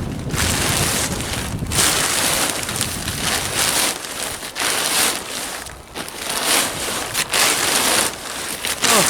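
Old plastic silage sheeting being handled, crumpled and stuffed into a bag: loud crackling rustle in uneven surges, with wind buffeting the microphone.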